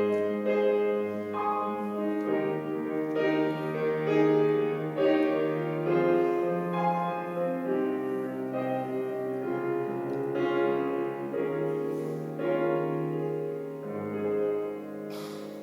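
Piano playing the closing instrumental bars of a song, sustained chords and melody notes, dying away near the end.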